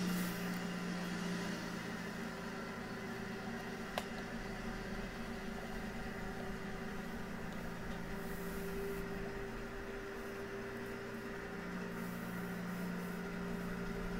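Steady vehicle-engine hum standing in for the toy delivery van as it drives up, starting and stopping abruptly like a dubbed-in sound effect, with one short click about four seconds in.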